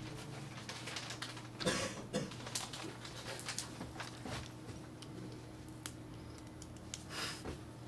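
Scattered clicks, taps and brief rustles of things being handled, with louder rustling about two seconds in and again near the end, over a steady low electrical hum.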